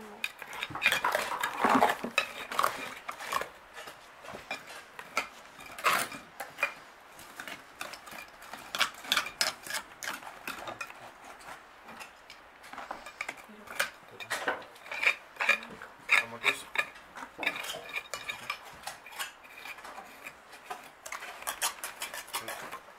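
Metal trowels and a hand scoop scraping and clinking in stony soil, irregular strokes of hand excavation, in clusters with short lulls between them.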